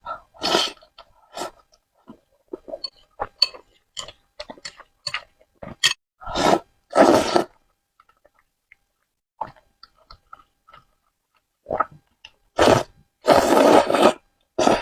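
Close-miked chewing and wet mouth sounds of someone eating spicy noodles: irregular short clicks and smacks, with a few longer noisy stretches, the longest two near the end.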